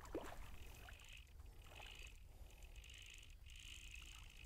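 Near silence: faint low rumble with a high buzzing sound that repeats in short pulses about once a second.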